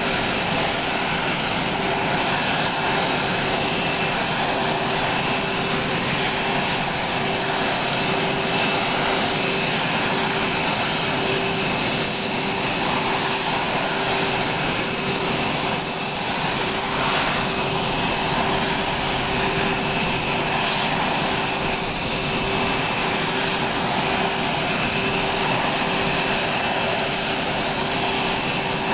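Steady jet whine from Air Force One, a Boeing 747: several even, high tones over a rushing noise, with no change in level.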